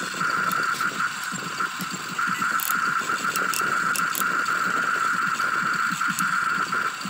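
Small electric motors of a toy remote-control excavator whining steadily as the boom and bucket move, the whine breaking off briefly a few times, with scattered sharp clicks.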